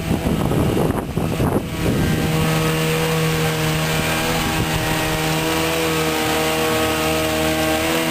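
Wind buffeting the microphone for about the first two seconds. Then the small homemade pontoon boat's motor running under way at a steady, unchanging pitch.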